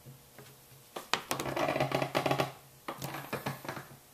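Screwdriver backing out a side-plate screw of a Smith & Wesson Model 29-2 revolver: two runs of rapid clicking, the first about a second in, the second shorter.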